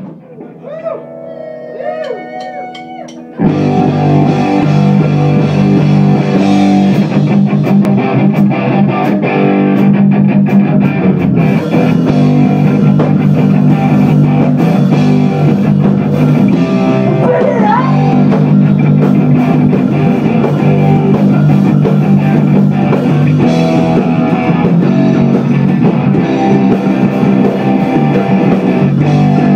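Live rock band. A guitar plays alone, quieter, with bending notes for the first few seconds; about three and a half seconds in, the full band with drums comes in loud and plays on.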